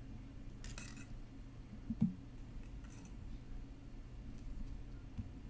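Faint handling noise of fine wire being pulled through and coiled by hand around a wire ring band, with a brief scraping rustle about a second in and a soft knock about two seconds in, over a steady low hum.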